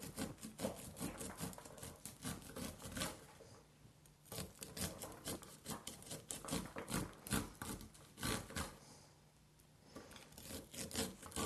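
Chef's knife cutting down an ear of fresh corn, kernels crackling and scraping off the cob in quick runs of strokes, with two short pauses.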